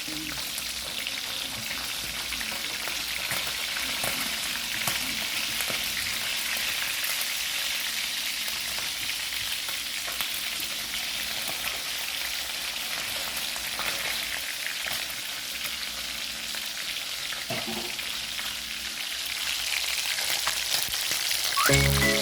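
Chicken frying in a pan of hot oil: a steady sizzle throughout.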